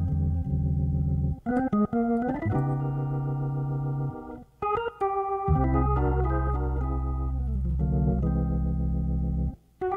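Hammond B3 organ playing sustained chords over held bass notes, with short breaks about four seconds in and near the end.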